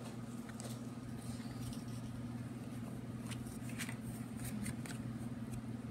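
Paper lantern parts rustling and crinkling in hands, with a few faint brief clicks, over a steady low hum.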